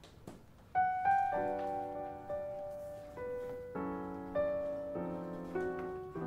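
Background piano music: single struck notes come in under a second in, then fuller chords follow from about halfway through.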